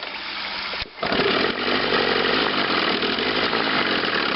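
Two-cylinder Chrysler outboard motor cranked on its electric starter. It catches about a second in and runs steadily with an intermittent ignition misfire, only one cylinder firing reliably while the top cylinder cuts in and out.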